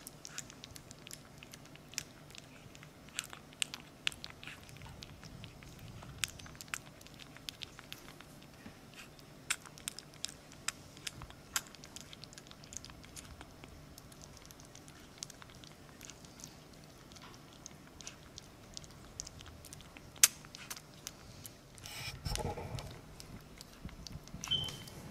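A four-week-old French bulldog puppy eating soft puppy mush off a paper plate: quick, uneven wet smacks and clicks of its mouth in the food. About three seconds before the end comes a louder scuffling noise, then a brief high squeak.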